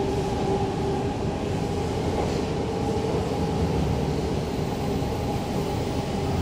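Metro train running at speed, heard inside the carriage: a steady rolling rumble with a constant motor hum on top.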